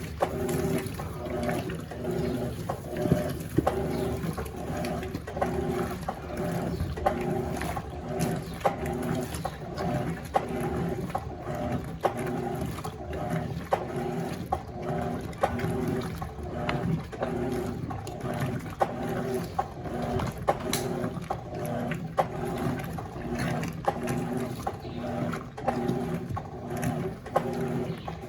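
Electrolux LF90 top-load washing machine agitating in turbo mode during a towel pre-wash: the motor hum pulses in a steady rhythm, about one and a half strokes a second, as the agitator swings back and forth, with water sloshing in the tub.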